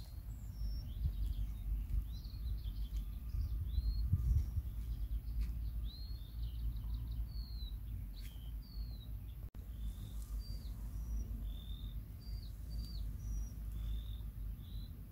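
Small songbirds chirping and singing, with short high notes and quick slides repeating throughout, over a steady low rumble.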